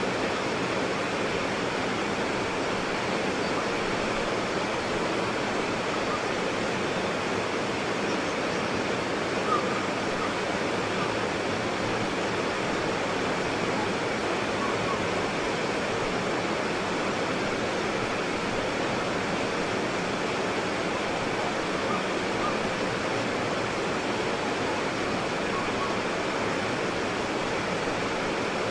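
White water rapids: fast water rushing and churning over rocks in a steady, unbroken roar, with small splashes now and then.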